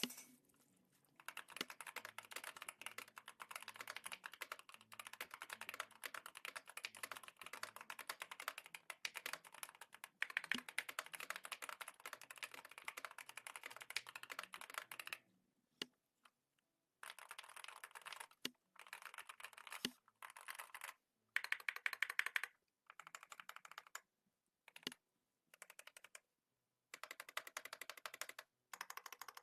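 Typing on a Keychron K2 HE keyboard with Hall effect magnetic switches, key clacks in quick succession. A continuous run of typing lasts about fifteen seconds, then gives way to shorter bursts broken by brief pauses.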